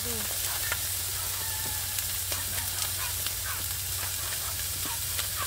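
Beef steaks sizzling on a hot grill pan: a steady hiss with scattered crackles and pops.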